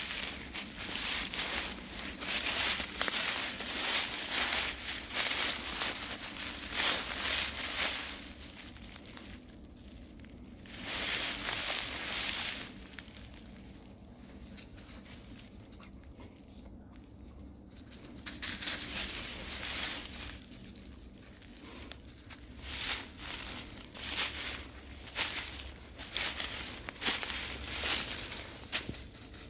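Footsteps crunching through dry fallen leaf litter, a run of steps that breaks off for several seconds near the middle and then picks up again.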